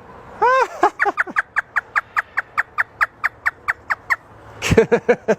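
Talking parrot imitating a hysterical laugh: a fast, even string of short high 'ha' notes, about five a second, for about four seconds, then a few lower notes near the end.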